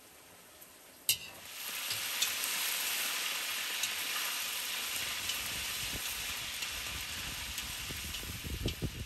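Pieces of meat frying in hot oil in a large cast-iron cauldron, a loud steady sizzle that starts suddenly after a sharp click about a second in, while the meat is stirred: the browning of the meat for pilaf. A low rumbling noise joins in during the second half.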